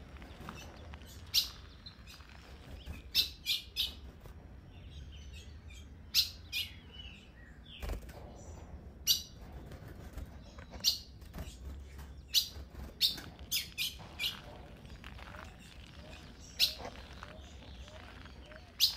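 Female ultramarine grosbeak (azulão) giving short, sharp chip calls, repeated irregularly about once a second, over a low steady rumble.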